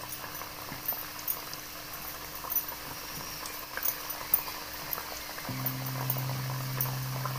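Mathri dough pieces frying in oil in a metal kadai on low heat: a steady fine sizzle and bubbling, with an occasional light tap of a utensil against the pan. A low steady hum runs underneath and grows louder about five and a half seconds in.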